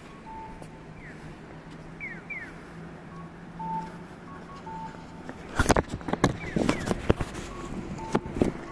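Japanese pedestrian crossing signal sounding its electronic cuckoo call, a higher short note followed by a lower one, repeated every second or so, with a few quick falling chirps. From a little past halfway, loud irregular buffeting on the microphone rises above it for about three seconds, typical of wind.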